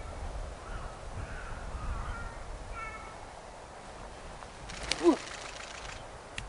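A disc golf disc is thrown hard, with a sharp snap about five seconds in as it leaves the hand, the loudest sound here. Crows caw in the background in the first few seconds.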